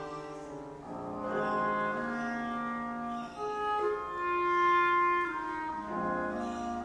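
Classical chamber music for flute, clarinet and piano: wind instruments holding long, overlapping notes over piano chords, with the harmony changing about a second in and again near the end.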